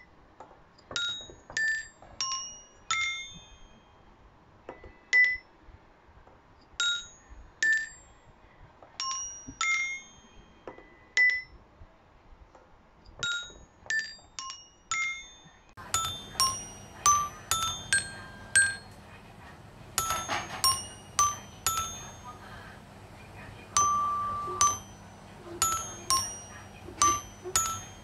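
Children's eight-bar metal xylophone struck by a CNC-cut wooden cam-drum mechanism through red-ball dowel mallets, playing a simple tune one ringing note at a time. About halfway through a steady low hum joins underneath the notes.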